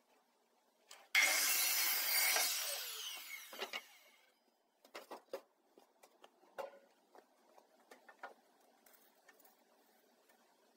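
Sliding compound mitre saw starting with a sudden burst about a second in and cutting through a pallet board, then its blade winding down with a falling whine over about two seconds. A few short knocks of wood being handled follow.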